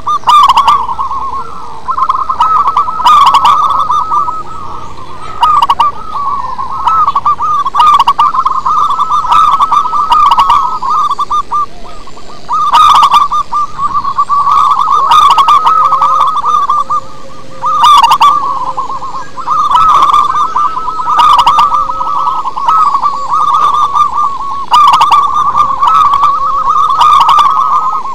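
Zebra dove (perkutut) cooing in loud, repeated phrases of quick wavering coos a few seconds long, with short dips between phrases and brief crackles on the loudest notes.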